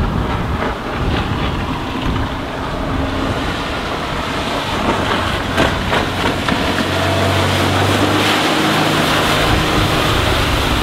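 Mercruiser 4.3L MPI V6 stern-drive engine of a Monterey 204FS bowrider running at speed, with the hiss of hull and spray as the boat carves a hard turn. About seven seconds in, the engine's steady drone comes through more strongly as the boat runs close by, over wind noise on the microphone.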